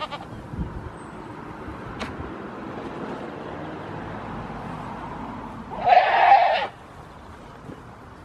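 A goat kid bleats once at close range, a loud call of just under a second about six seconds in.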